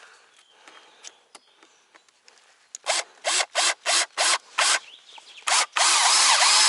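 Power drill driving a self-tapping screw into a wooden board: about six short trigger bursts a few times a second to start the screw, then one longer run of about a second as it drives home. A few faint clicks of handling come first.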